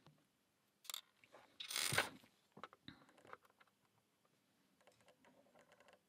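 Faint small metallic clicks and scrapes of tweezers working a small part into a pin hole of a tubular lock, with a brief louder rustle about two seconds in.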